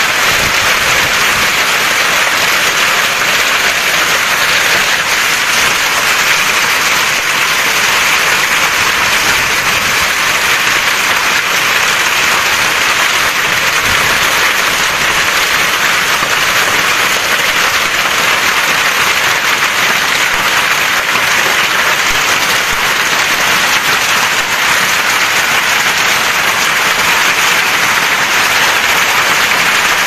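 Hailstorm: hailstones and rain pelting down hard, a dense, even, steady patter with no letup.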